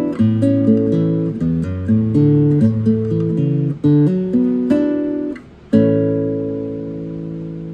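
Nylon-string classical guitar playing a brisk passage of plucked notes and chords, then after a brief break a final chord, left to ring and fade out.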